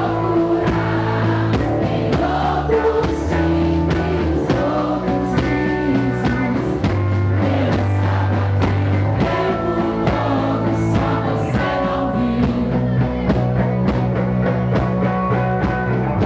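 Live rock band playing loudly: drum kit, electric guitar and bass, with a singer's voice over them.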